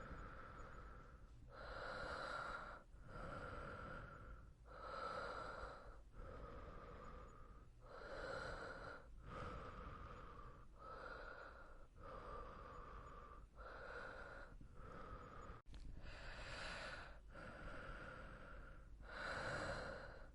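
A person breathing slowly and steadily. Long inhales and exhales alternate with short pauses between them, about one full breath every three seconds.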